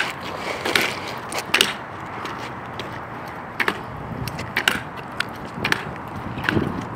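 Kick scooter rolling on pavement, a steady rolling noise from its wheels, with a dozen or so irregular clacks and knocks from the scooter.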